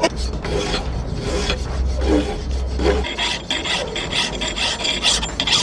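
Hand file rasping back and forth over a small metal musket lock part, in a run of repeated strokes.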